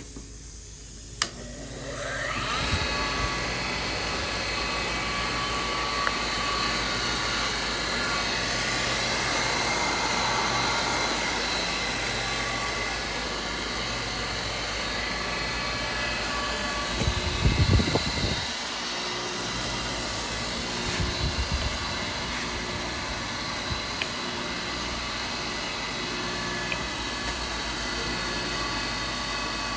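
Tool and cutter grinder motor switched on with a click, spinning up over about a second and then running steadily with a whine. A few low knocks come about halfway through.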